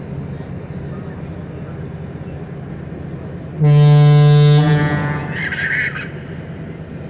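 Train horn sounding one short blast of about a second over the steady rumble of a stopped train. A high wheel or brake squeal dies away in the first second.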